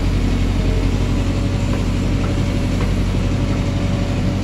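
Diesel engine of a JCB 3DX backhoe loader running at a steady speed.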